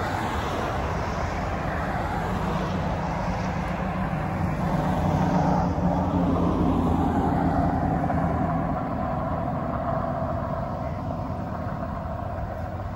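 Road traffic: cars and pickup trucks passing on a multi-lane road, a steady rush of tyres with a low engine hum, swelling a little about halfway through.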